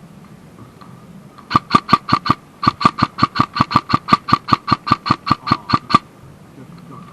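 Electric airsoft gun firing a quick string of about twenty shots, around five a second, with one short break early in the string.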